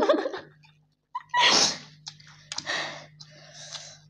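A loud, sudden burst of breath about a second and a half in, then several shorter hissing breaths, from a person eating extra-spicy ramen and reacting to its heat.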